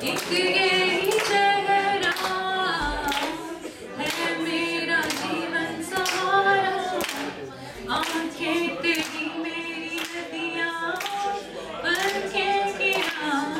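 A woman singing unaccompanied into a microphone, holding long, wavering notes, while the audience claps along in a steady beat.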